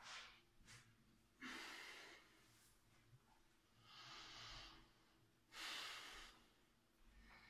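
A man breathing: three faint breaths, each under a second long, against near silence.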